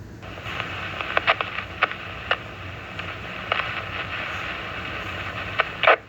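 2-metre FM repeater heard through a radio's speaker while a station dead keys: an open carrier full of hiss, broken by irregular pops and crackles, then a burst and the squelch closing near the end. The noise is interference that the operator takes for the repeater receiver being desensed, perhaps through a loose feed line or antenna connection.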